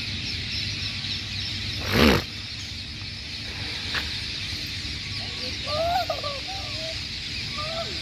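A huge flock of rose-ringed (ringneck) parakeets chirping together: a dense, unbroken chatter of many high, short calls. About two seconds in, a brief loud sound rises over the chorus, and a few lower calls come through near the end.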